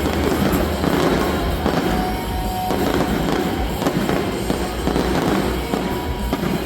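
Fireworks going off in a dense, continuous run of bursts and crackles, with music playing underneath.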